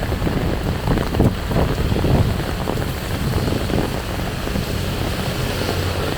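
Heavy rain falling with a steady low rumble underneath.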